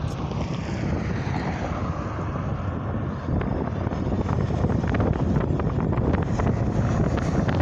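Highway traffic, trucks and cars, rushing past close by as a steady wash of engine and tyre noise. In the first two seconds one passing vehicle's noise sweeps down in pitch as it goes by.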